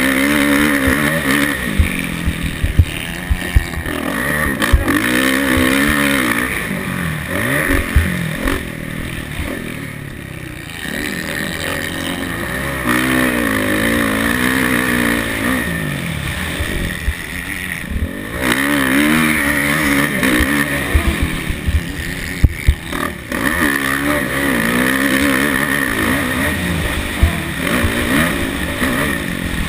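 Motocross dirt bike engine revving hard, its pitch climbing and dropping again and again as the rider accelerates, shifts and backs off around the track, with wind on the helmet-mounted microphone and sharp thuds scattered through.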